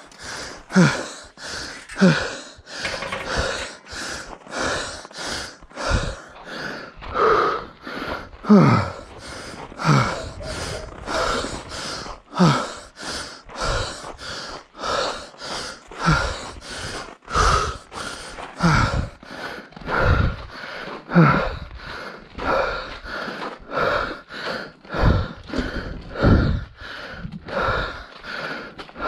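A runner breathing hard mid-run: rhythmic heavy exhalations about once a second, some voiced with a short falling groan.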